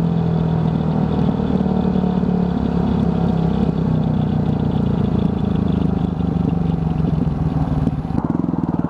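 Yamaha WR250F's 250 cc single-cylinder four-stroke engine running steadily while riding. Near the end the note drops, then starts to climb as the bike accelerates.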